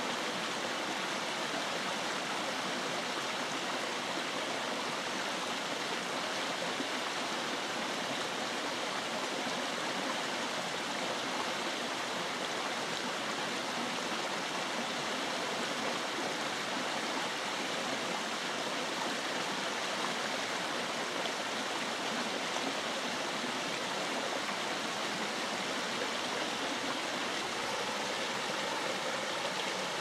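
Small woodland brook spilling over a low log-and-stone step into a rocky run: a steady, even rush and splash of water.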